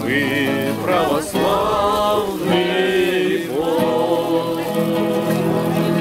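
Several voices singing together to an acoustic guitar.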